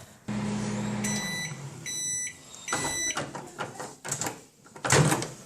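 Microwave oven running with a low hum that stops, then two electronic beeps from the oven, followed by several clicks and a louder clunk near the end.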